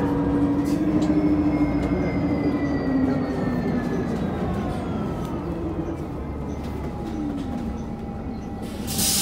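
City bus running, heard from inside: a steady rumble with a drivetrain whine that slowly falls in pitch as the bus slows. Near the end comes a sudden loud hiss of compressed air.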